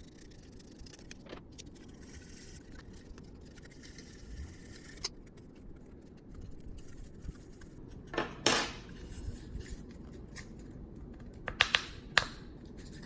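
Quiet handling of 3D-printed PLA tripod parts while a metal M5 bolt is pushed through their holes: occasional light clicks, a short scrape about eight seconds in, and a quick run of sharp clicks near the end.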